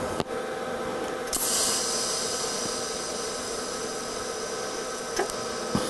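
TIG welding arc struck on a car body's sheet steel about a second and a half in, then hissing steadily over a constant hum while filler metal is built up to close a trim hole. A few sharp clicks.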